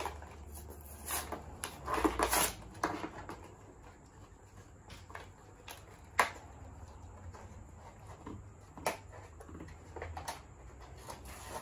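Plastic and cardboard toy packaging rustling and crinkling as it is opened by hand, with a few sharp snaps and clicks spread through.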